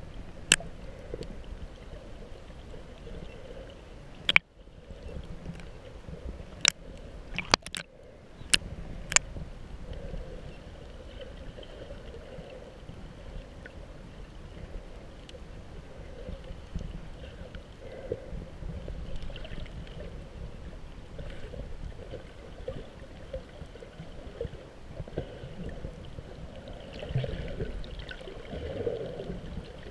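Muffled water sloshing and gurgling heard through a camera held at and under the water surface. There are several sharp clicks in the first ten seconds, and the sound briefly cuts out twice.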